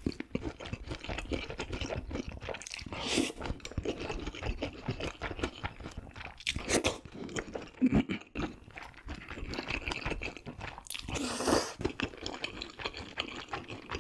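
Close-miked mouth sounds of spicy cold noodles being eaten: wet slurping of noodles and broth and steady chewing. A few louder slurps come through, the longest about 11 seconds in.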